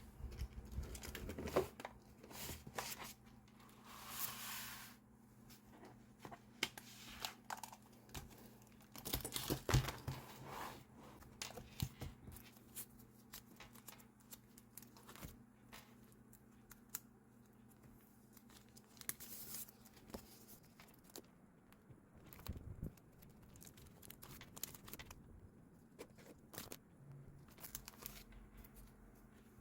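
Paper crafting sounds: paper and sticker sheets being torn, peeled and crinkled, with light taps on the desk, in irregular bursts. A longer tearing sound comes about four seconds in.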